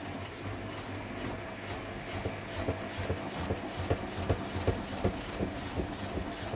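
Samsung Eco Bubble washing machine starting up and running, its drum motor giving a steady hum with a regular knocking about three times a second as the drum turns.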